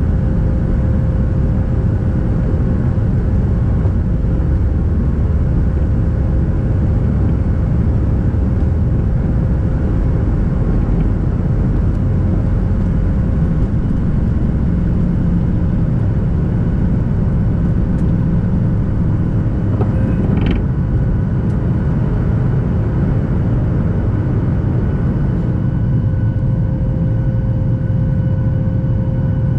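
A Boeing 737 MAX 8's CFM LEAP-1B turbofans at takeoff thrust, heard from inside the cabin over the wing as the jet rolls down the runway and lifts off: a loud, steady roar with a held hum. A short knock sounds about two-thirds of the way through.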